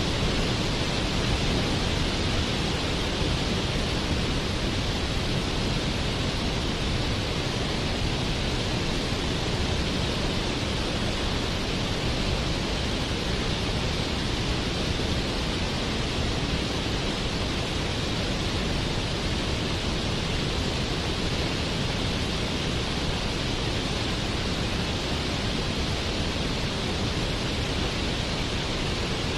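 Waterfall: falling water rushing in a steady, unbroken hiss with no changes.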